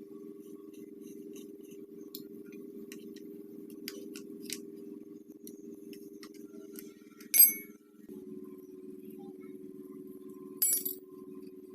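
Small metal parts being handled, with scattered light ticks and two sharp ringing metallic clinks, about seven and ten and a half seconds in, over a steady low hum.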